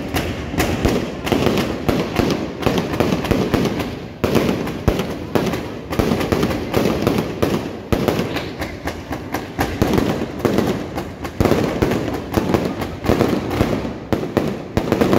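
Fireworks going off close by in a dense, unbroken barrage: rapid crackling bangs, many a second, rising and falling in loudness.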